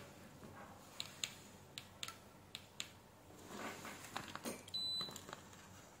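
Digital multimeter giving one short, high beep about five seconds in. Before it come a few light clicks of the test-probe tips touching the circuit board.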